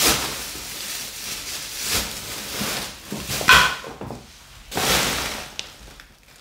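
Clear plastic rubbish bag rustling and crinkling as it is set down and trodden on by platform high heels, with knocks of the heels on the floor. The loudest is a sharp crunch about halfway through.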